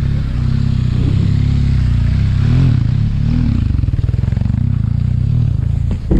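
BMW R1200GS boxer-twin engine running while riding. Its low drone wavers slightly in pitch with the throttle, and there is a brief loud thump just before the end.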